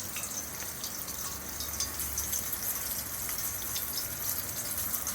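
Rainwater running down a rain chain: a steady splashing hiss with many small drips and splashes scattered through it.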